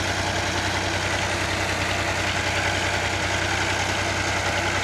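Fiat Ghazi 75 hp tractor's diesel engine idling steadily, with an even, unchanging beat.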